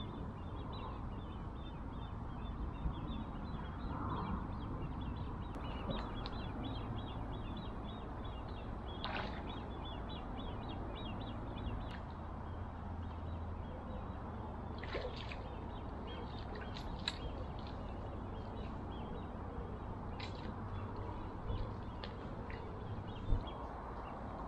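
Birds calling, with a run of rapid high chirping through the first half, over a low steady rumble. A few short clicks and knocks are scattered through, the sharpest near the end.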